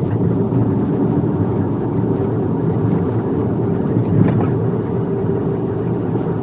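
Kei-truck micro camper driving along at a steady speed: its small engine runs evenly under a constant hum of road noise.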